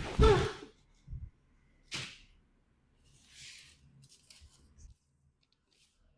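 Chiropractic adjustment: a loud pop at the thrust with a brief vocal sound from the patient, then a second sharp crack about two seconds later. These are joints cavitating as they are manipulated.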